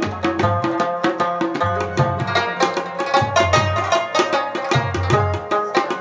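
Instrumental background music: a plucked rabab playing a quick melody over a repeating drum beat.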